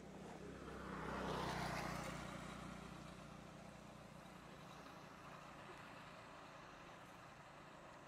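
A motor vehicle passing by: its noise swells to a peak about a second and a half in, falls in pitch, then fades to a low steady hum.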